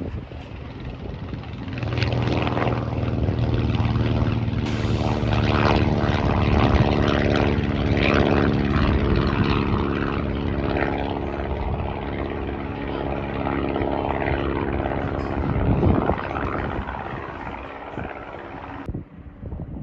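Light propeller airplane's piston engine and propeller running with a steady drone. It swells about two seconds in and eases off after about sixteen seconds.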